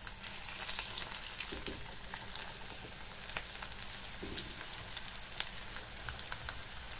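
Breaded Baltic herring frying in hot oil in a frying pan: a steady sizzle with many fine crackling pops as more pieces of fish are laid into the oil.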